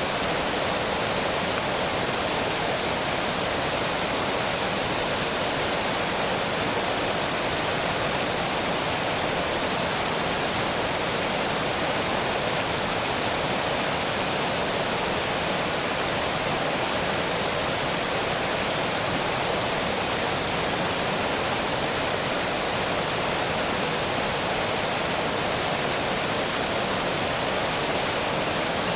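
Water pouring steadily over a small dam, a constant rushing hiss.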